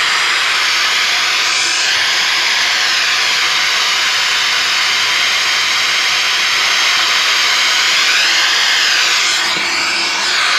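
Steady FM radio static: an untuned FM receiver module hissing through two 4-inch speakers driven by a homemade TDA2030 amplifier board. The hiss dips slightly near the end.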